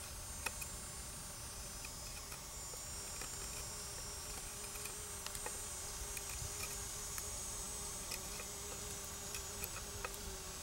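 Knife shaving a wooden axe handle to take down its high spots so the axe head seats further, heard as small clicks and scrapes now and then. Behind it runs a steady high-pitched buzz.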